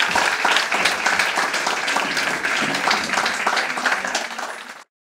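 A small audience clapping and applauding after a song. The applause thins out and then cuts off abruptly near the end.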